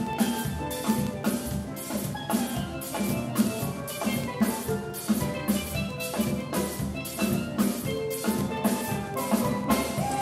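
A steelpan band playing live: several steel pans ringing out melody and chords over a drum kit keeping a steady beat.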